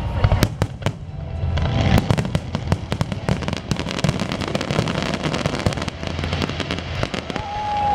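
Aerial fireworks bursting: a few sharp bangs in the first two seconds, then a dense run of crackling from about two seconds in until near the end, over a low rumble of booms.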